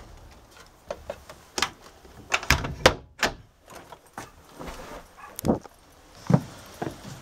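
Irregular knocks and thuds of someone moving about a small boat's cabin: footsteps on the floor and the bump of a door, several hard knocks close together a little before the middle.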